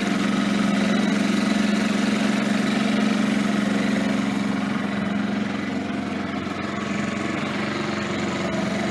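A sailboat's auxiliary motor running steadily under way as a steady mid-pitched hum, easing a little about halfway through.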